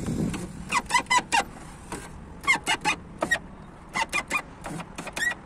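2011 Skoda Octavia power window regulator squeaking as the motor drives the glass, in repeated clusters of short, high chirps. This is the typical regulator squeak from grease washed out of the rollers or cables, here traced to one roller, the front-left.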